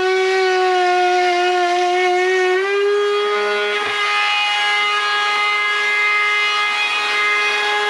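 A power tool's motor running with a steady high whine while trimming boards, its pitch sagging slightly under load and then rising again and holding about three seconds in.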